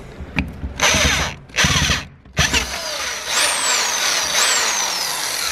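Handheld power drill boring through the sheet-metal floor pan of a van, with the bit turning in reverse. It runs in a few short bursts, then steadily from about halfway, with two high squeals falling in pitch.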